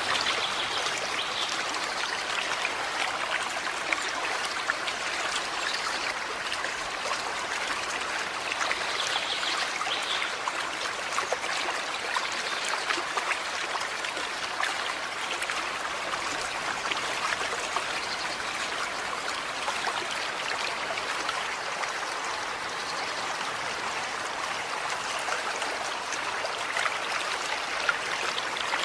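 A small forest creek running steadily, its water trickling and babbling over stones in an even, unbroken wash.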